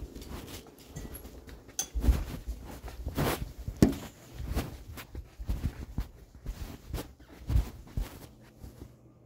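Irregular bumps, knocks and rustles of a phone being handled or carried with its microphone rubbing against something; the noises stop just before the end.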